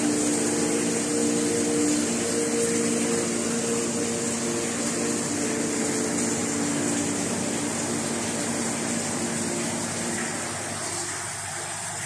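Steady hiss and hum of aquarium equipment: air pumps and filters running, with water bubbling in the tanks. A few low steady tones under the hiss fade out near the end.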